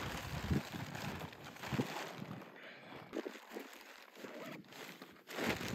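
Tent fabric rustling and crinkling as a collapsed instant tent is folded and rolled up, heaviest in the first couple of seconds, with a few soft shuffling steps on dirt.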